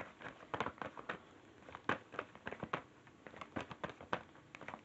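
Tarot cards being shuffled and handled: an irregular run of sharp clicks and snaps, a few each second.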